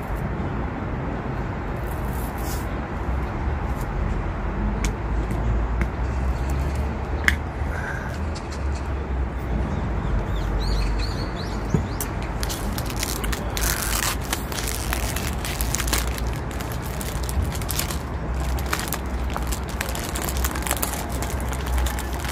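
Thin plastic wrapping crinkling and crackling as a kimbap roll is unwrapped by hand, in dense bursts through the second half. A steady low rumble runs underneath, with a few single sharp clicks earlier.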